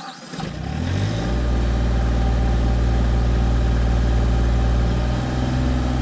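RK25 compact tractor's diesel engine starting up: it catches suddenly, climbs in pitch for about a second, then settles into a steady run.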